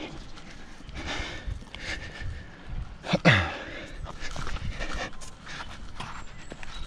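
A climber panting hard with effort, with one loud grunt that drops in pitch about three seconds in.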